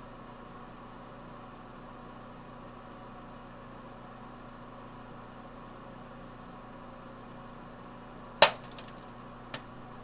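Microwave oven running with a steady hum while a small rear-projection-TV CRT inside it is microwaved; about eight seconds in the tube's glass pops with one sharp, loud crack and a few small crackles, and a second, smaller crack follows about a second later.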